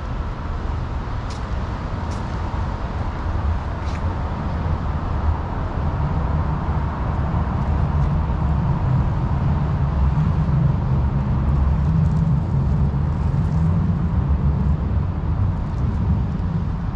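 City street traffic: a motor vehicle's low engine rumble swells over several seconds and eases off near the end.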